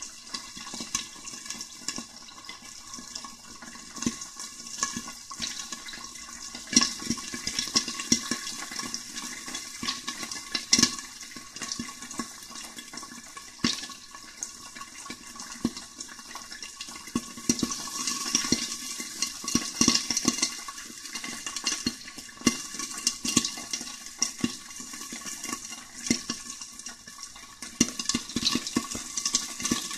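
Popcorn kernels in hot oil in a covered wok: a steady sizzle with sharp pops coming at irregular intervals, the popping still slow.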